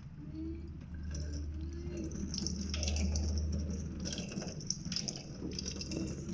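Water splashing and dripping, as from a tap, over a low steady hum that swells to its loudest about halfway through.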